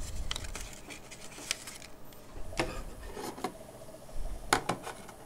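Sheets of brown paper being handled and folded: a few sharp crackles and soft rustling as the cut paper circles are creased and set down on the table.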